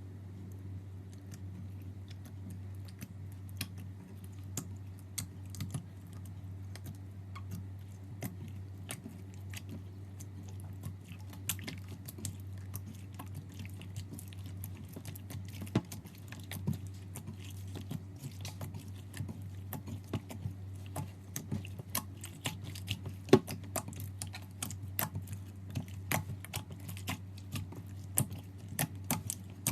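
Slime being worked by hand, giving many sharp, sticky clicks and pops at an irregular pace over a steady low hum.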